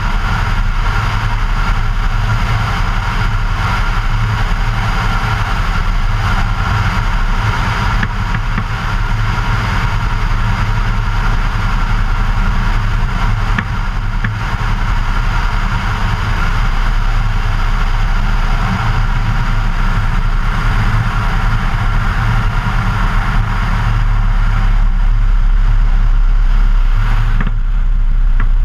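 Luscombe light aircraft's engine and propeller running steadily on approach, with a deep rumble underneath. Near the end the sound grows a little louder and duller as the plane comes down over the grass runway.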